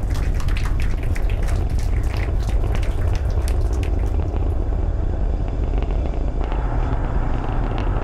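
Falcon Heavy's 27 Merlin rocket engines firing in ascent: a deep, steady rumble with sharp crackling over it that thins out after about four seconds.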